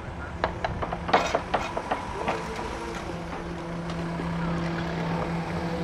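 A panel van's engine running steadily as it approaches and drives onto the crossing, its hum growing louder in the second half. A cluster of sharp clicks and knocks comes in the first two seconds.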